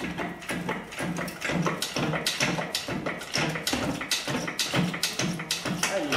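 A quick, irregular run of clicks and taps, about three to five a second.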